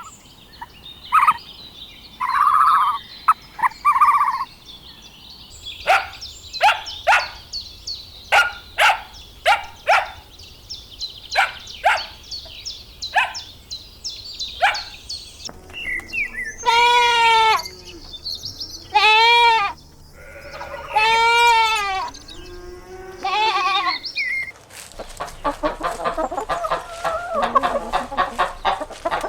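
A series of short, quick animal chirps gives way to four loud quavering bleats from goats or sheep, about two seconds apart. Rapid clucking-like calls start near the end.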